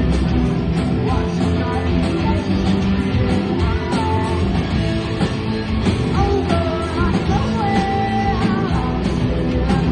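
Rock music played by a full band, with electric guitars, bass and drums, and a bending lead melody over them.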